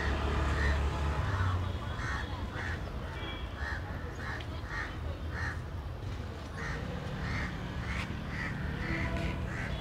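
Crows cawing over and over, a short call roughly every half second, over a low steady hum.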